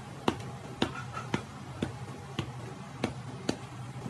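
Seven sharp clicks, roughly every half second, over a faint steady low hum.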